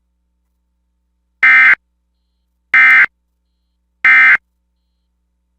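Emergency Alert System end-of-message signal: three short, identical bursts of SAME digital data tones, each about a third of a second long and about 1.3 seconds apart, sending the end-of-message code that closes the alert.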